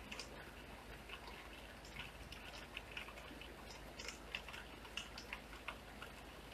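Light rain at night: irregular single drops striking wet pavement and puddles, several a second, over a faint steady hiss.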